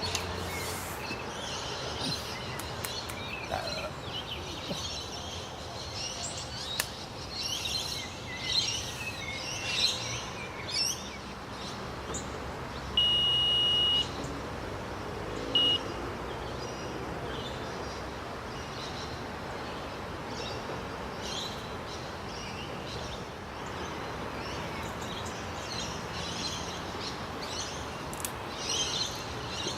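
An electronic carp bite alarm gives one steady beep about a second long, then a short second beep about two seconds later. Birds chirp and sing throughout.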